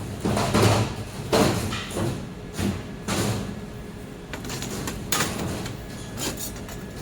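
A series of short knocks and scrapes, irregularly spaced, with a quieter gap midway.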